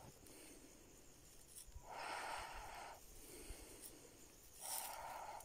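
Faint snuffling and rustling from two puppies playing nose to nose in dry grass. It comes as two soft bursts about a second long, one near the middle and one near the end.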